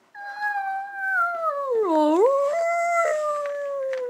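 A dog howling: one long howl that dips sharply in pitch about two seconds in, climbs back up, then slowly slides down.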